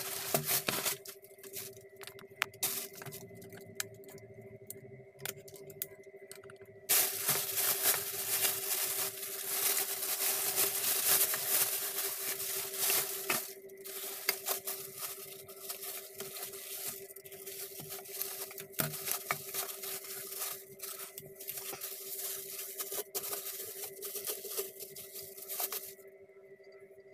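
Plastic courier bag and plastic wrapping rustled, crinkled and torn open by hand, loudest from about seven to thirteen seconds in, over a steady hum.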